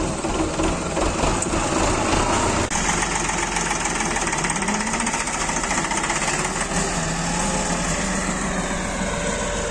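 Diesel tractor engine running steadily. The sound changes about three seconds in to a Massey Ferguson 260 tractor driving slowly, its engine pitch rising a little and then holding steady.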